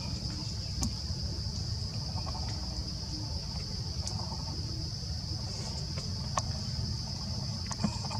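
Steady high-pitched insect chorus, a constant buzz over a low rumble, with a few sharp clicks around one, four and six seconds in and near the end.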